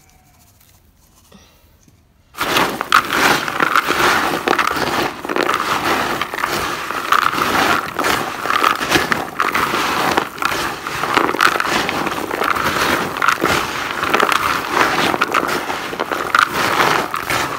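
Hands mixing dry gowe (kajiji) incense pieces with white yarayara crystals in a bowl: a dense, continuous crunching and crackling that starts about two seconds in, after a quiet start.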